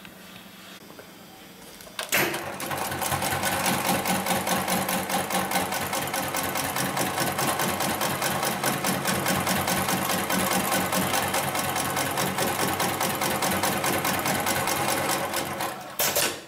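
HIGHTEX 72008 extra heavy-duty programmable pattern sewing machine stitching webbing straps onto canvas: a fast, even needle beat that starts with a click about two seconds in and stops with a knock near the end.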